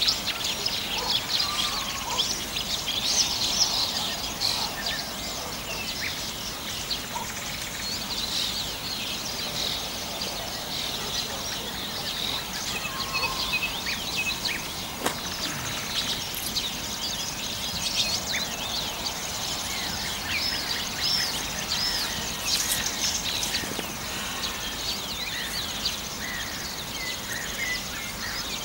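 Many songbirds singing over one another: a steady chorus of quick high chirps and whistles.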